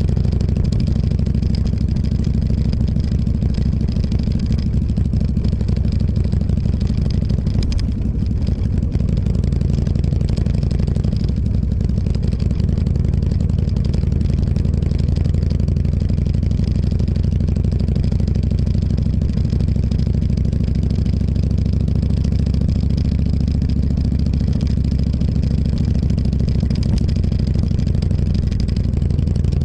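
Motorcycle engine running at a steady pace while riding.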